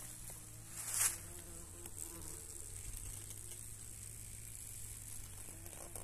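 Wasps buzzing around their nest inside an old beehive, a faint wavering hum, with a short rustle about a second in.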